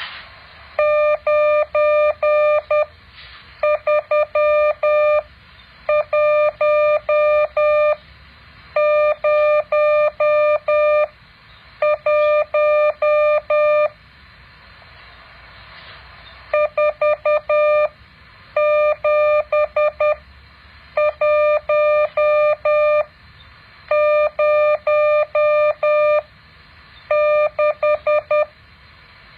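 Morse code practice tone, a single mid-pitched beep keyed in dots and dashes. It is sent as ten groups of characters, each about two seconds long, with short pauses between them and a longer pause about halfway through.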